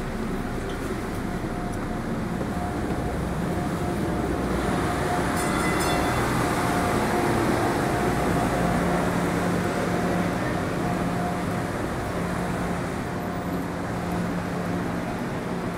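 MBTA Green Line light-rail car running along the track: a steady rumble of wheels and car noise with a thin, steady whine, swelling slightly in the middle.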